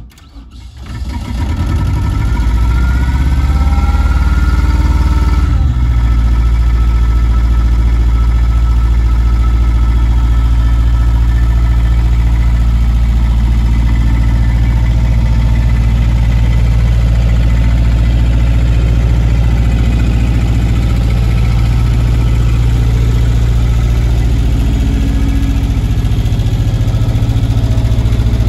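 The Deutz diesel engine of an Atlas Copco towable screw compressor, just started, coming up to speed over the first couple of seconds and then running steadily with a deep, even drone.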